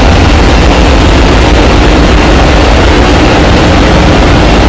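Loud, steady din of a ship's engine-room machinery running: a deep, unbroken rumble with a steady hum above it.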